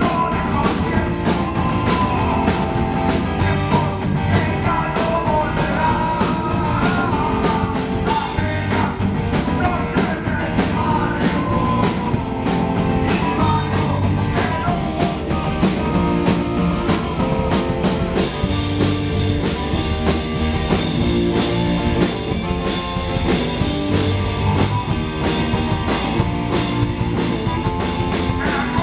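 Live rock band playing: electric guitar, bass guitar and drum kit with a singer's voice over them. The drums keep a beat of sharp hits about two or three a second, then about two-thirds of the way through the high end opens into a continuous cymbal wash.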